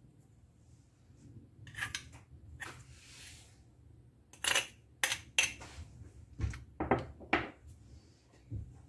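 A metal spoon clinking against bowls as ingredients are spooned into a stainless steel mixing bowl: a few sharp taps, then a quick run of about six clinks from about halfway through.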